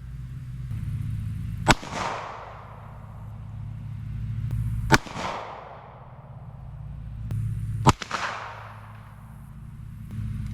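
Three gunshots about three seconds apart, each followed by a short echo that dies away, fired through a chronograph. A steady low hum runs underneath.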